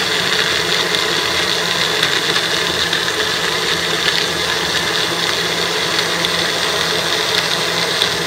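Magic Bullet personal blender running steadily, its motor whirring as it blends a creamy drink mix in the pressed-down cup.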